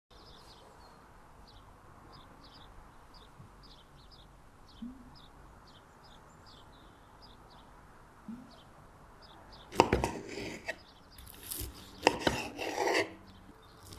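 Faint, short high chirps repeat for the first nine seconds or so. About ten seconds in, loud irregular knocks and clattering of kitchen work begin.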